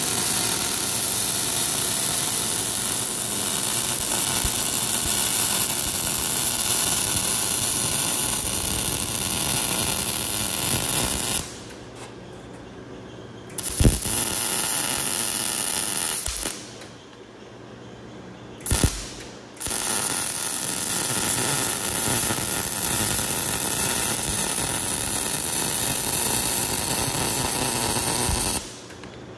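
Power ratchet running a bolt, in three long runs with two short pauses between them. Each restart opens with a sharp click.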